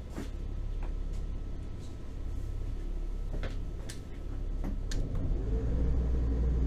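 Trawler yacht's inboard engine running at low revs while manoeuvring, rising in level about five seconds in as the throttle is worked, with a few light clicks along the way.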